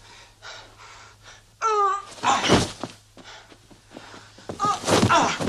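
Two men grappling in hand-to-hand combat practice: a short wavering cry about a second and a half in, a heavy thud of a body hitting the mat just after, then grunts and gasping breaths near the end.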